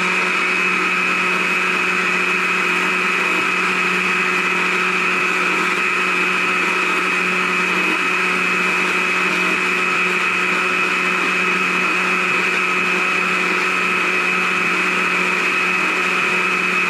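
Small chainsaw running steadily at full speed while the nose of the bar cuts into a small block of wood. It holds one steady pitch the whole time.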